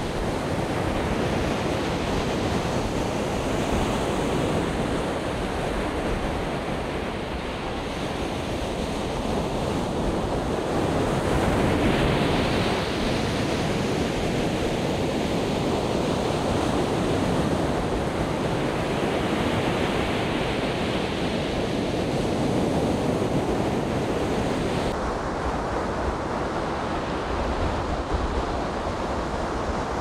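Sea waves breaking and washing up the shore in a continuous surf, swelling louder twice as bigger waves come in. Near the end the surf turns duller, with less hiss.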